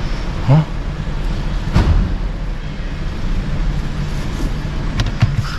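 Audi A5's engine idling steadily while the automatic gearbox fluid warms up for its level check. A single knock sounds about two seconds in, and a few light clicks come near the end.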